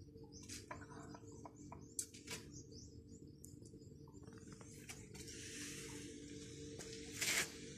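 Bonsai wire being handled and wound around a branch: a scatter of small clicks and ticks, then a run of rustling from the leaves and branch, with a brief louder rustle near the end.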